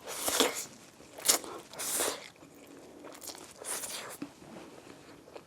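Close-miked eating sounds: about five short, noisy bites and chews in the first four seconds, then quieter.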